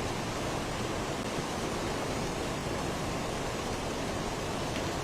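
Steady, even rushing noise, constant in level, with no rhythm or pitch.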